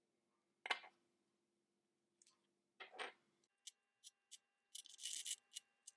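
Plastic speed cube pieces being pulled off and handled: scattered clicks and rubbing, then a quick run of sharp plastic clicks in the second half as corner and edge pieces come out.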